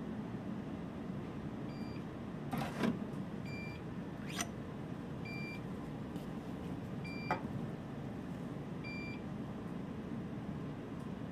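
Benchtop centrifuge sounding its end-of-run alert, a short high beep about every two seconds, five times, as the rotor coasts to a stop. A loud clunk comes about two and a half seconds in as the lid is opened, then two sharp clicks.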